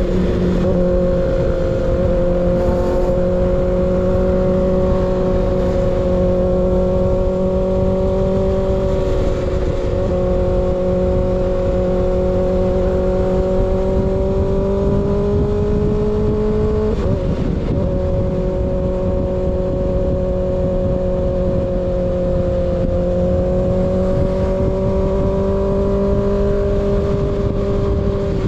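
Kawasaki ZX6R inline-four motorcycle engine through an unbaffled M4 GP19 slip-on exhaust, cruising under way at steady revs with the note slowly rising. The note breaks and drops briefly a few times, as with gear shifts or throttle changes.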